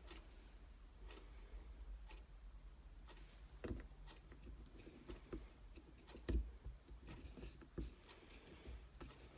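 Quiet handling of a cordless impact driver's plastic housing and small parts: scattered light clicks and knocks, the loudest about six seconds in.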